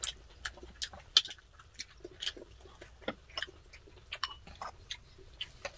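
Close-miked eating sounds: irregular wet clicks and smacks of chewing, mixed with light taps of wooden spoon and chopsticks on the pot and bowls, several a second.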